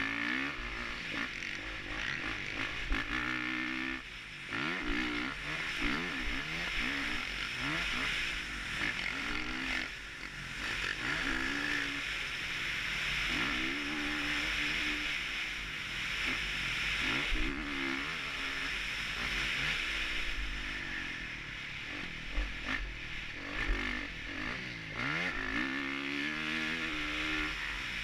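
Honda 450 motocross bike's single-cylinder four-stroke engine under hard riding, revs climbing and dropping over and over as it accelerates and backs off, with a steady rush of wind noise over a helmet-mounted camera.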